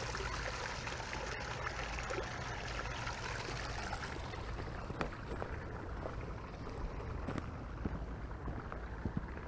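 Small rock waterfall splashing and trickling into a garden pond, a steady rush of water that fades from about halfway through. A few light taps come in the second half.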